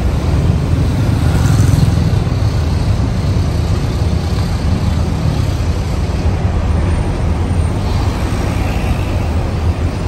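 Diesel engine of a large intercity coach pulling away at low speed, a steady low rumble that is loudest in the first couple of seconds.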